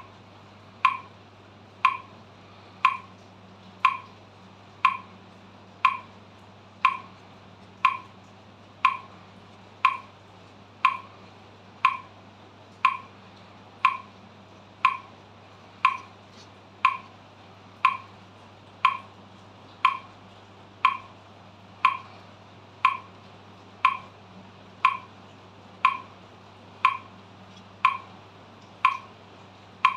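Metronome clicking steadily at 60 beats per minute, one sharp click each second, all alike, over a faint steady low hum.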